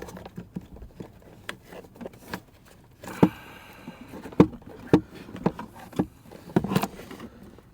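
Irregular plastic knocks, clicks and rubbing from handling a truck's dash trim and adapter wiring while pushing them back into place.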